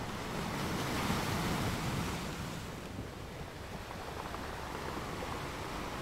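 Ocean surf breaking and washing onto a sandy beach: a steady rush of noise that swells about a second in and then eases.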